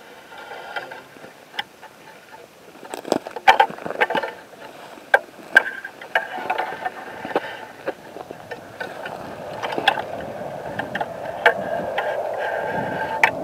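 Footsteps on rocky ground and dry brush scraping past while walking through desert scrub, with sharp clicks and knocks scattered throughout. A steady rushing noise grows louder over the last few seconds.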